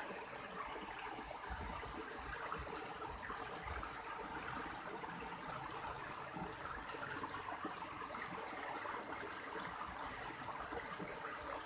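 Steady flow of water in a rice-field irrigation channel.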